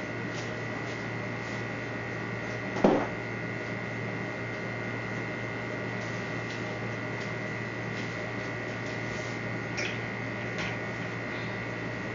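Steady electrical mains hum with a thin high tone over it, broken by a single sharp knock about three seconds in and two faint clicks near the end.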